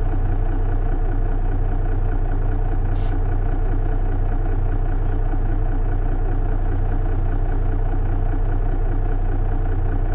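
Diesel engine of a Mercedes-Benz Citaro city bus running steadily, heard from on board as a low, even hum with no change in pitch.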